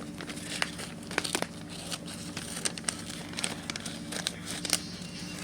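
A handmade blind bag being crinkled and opened by hand, with irregular sharp crackles and rustles over a steady low hum.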